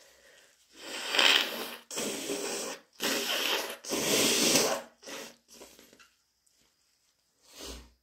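A person with a head cold sneezing and blowing a congested nose, wet and snotty. There are four loud, rushing blasts each about a second long, the first and loudest about a second in, then two shorter ones and a last one near the end.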